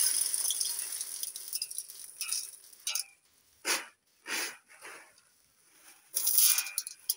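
Dried shelled maize kernels poured from a woven basket into an aluminium basin. A rushing hiss of grain fades away over the first second or so, then comes a series of short separate pours.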